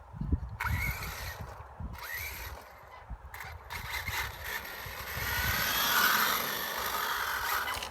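HPI WR8 Flux RC rally car's brushless electric motor whining up in short throttle bursts, then a louder hiss builds from about four seconds in as the car runs on the wet road. Wind rumbles on the microphone underneath.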